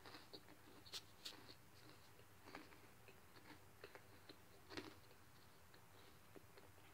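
Faint chewing with soft wet mouth clicks and smacks, a few at a time, scattered irregularly.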